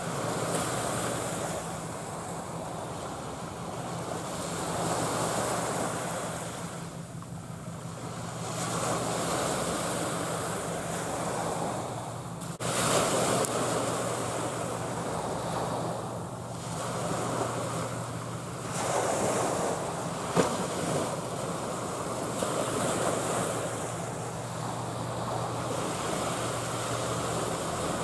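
Sea waves washing in slow swells that rise and fall every few seconds, with wind buffeting the microphone and a steady low hum underneath. Two short clicks stand out, the sharper one about two-thirds of the way through.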